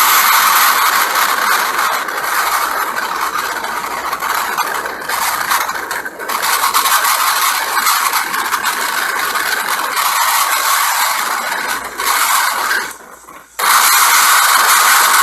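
Hurricane-force wind and driving rain, a loud steady rushing noise that dips briefly about thirteen seconds in.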